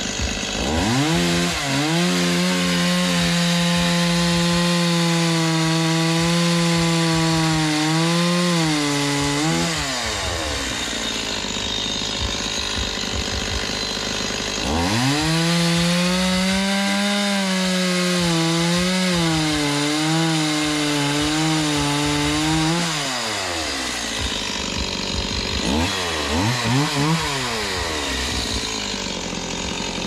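STIHL two-stroke chainsaw revving to full throttle and cutting through a log, twice, each cut about eight seconds long, with the engine note falling back in between. A short rev comes near the end.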